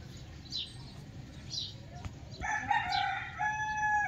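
A rooster crows once, starting about two and a half seconds in: a loud call that ends on a long, steady held note. Before it, a small bird gives short falling chirps about once a second.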